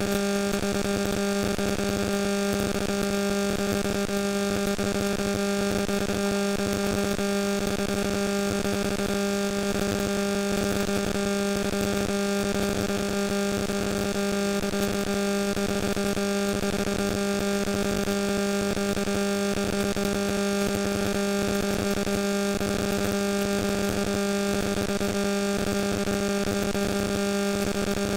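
Steady electrical hum in the audio chain: one unchanging buzzing tone with overtones over a constant hiss.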